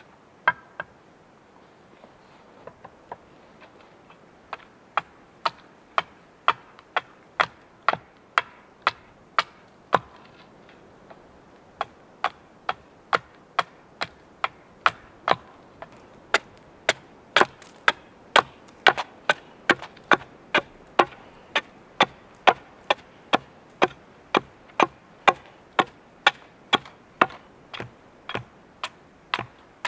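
Short-handled axe chopping a long wooden stake held on a stump chopping block: repeated sharp wooden chops, scattered at first, then a steady rhythm of about two a second.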